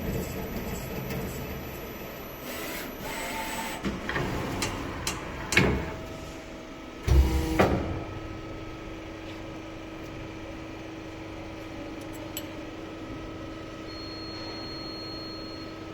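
CNC metal spinning machine running, with a string of sharp knocks and clatters in the first half and a louder burst of clatter about seven seconds in, then settling to a steady hum with a held tone.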